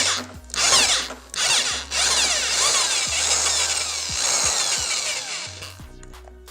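Electric drill boring into metal past a broken-off drill bit piece lodged in the hole, with a short burst and then a longer steady run that trails off near the end.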